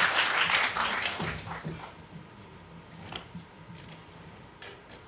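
Audience applauding, dying away within the first two seconds, followed by a few light taps.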